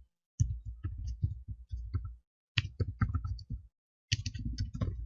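Computer keyboard typing in three quick runs of keystrokes with short pauses between them.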